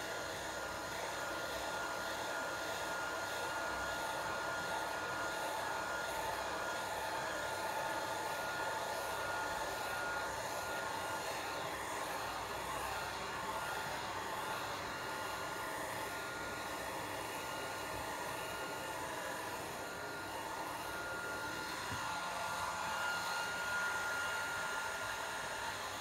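Handheld hair dryer running steadily: a rush of blown air with a thin, steady whine.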